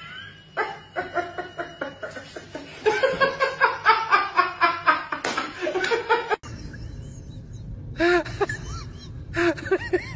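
A man and a woman laughing hard together, loud and rapid, which cuts off suddenly about six seconds in. After it, a low hum with a few short voice sounds that rise and fall in pitch.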